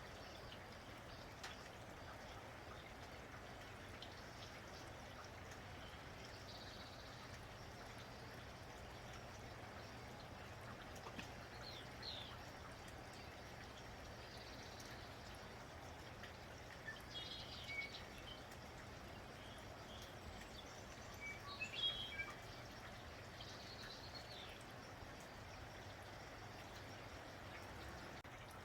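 Steady light rain falling, with birds chirping briefly every few seconds, loudest about two-thirds of the way through.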